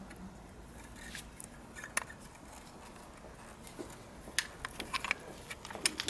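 Scattered light clicks and taps of metal brake pads being handled and fitted into a motorcycle's front brake caliper, with a quicker cluster of clicks about four to five seconds in.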